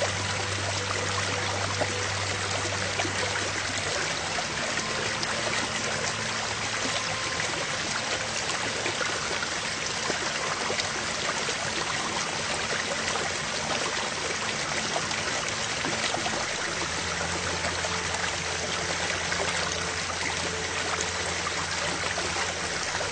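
A steady, even rushing noise, like flowing water, with faint held low tones underneath.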